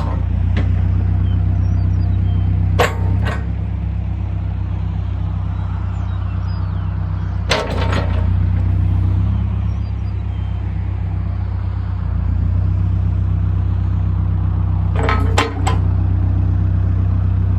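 New Holland B95B loader backhoe's diesel engine running at a steady speed, with a few sharp knocks: about three seconds in, around eight seconds, and near the end.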